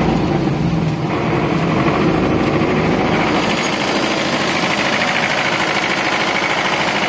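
SMD diesel engine of a DT-75 crawler tractor idling steadily. It is heard closer from about halfway through.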